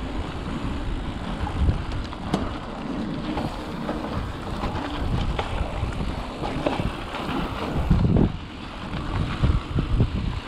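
Wind buffeting the microphone over the rumble of mountain-bike tyres rolling on a dirt trail, with scattered rattles and knocks from the bike over bumps and a heavier thump about eight seconds in.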